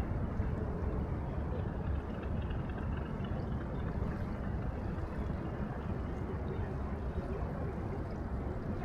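Steady riverside ambience of wind and river water, heaviest in a low rumble, with no distinct events.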